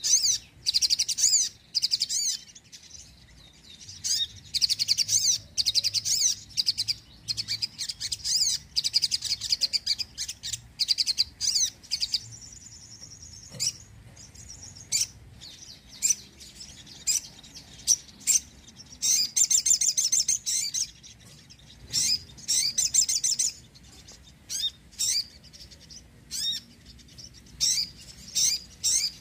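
Sogon (crimson sunbird) singing: rapid, very high-pitched twittering trills and sharp chirps in bursts, with one long run of song in the first half and shorter bursts with short pauses later.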